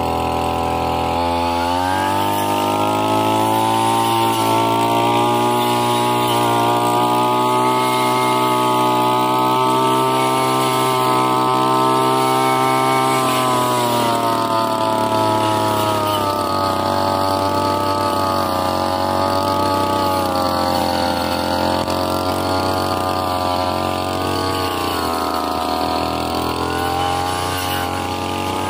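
Petrol brush cutter fitted with a circular saw blade, running at high revs while cutting through grass and weeds. It revs up over the first couple of seconds, then holds a steady high speed, its pitch sagging and wavering slightly in the second half as the blade works through the growth.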